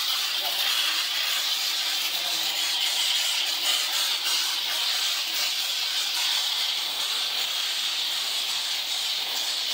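A jet of water from a hose spraying onto a motorcycle's rear wheel and frame, a steady hiss.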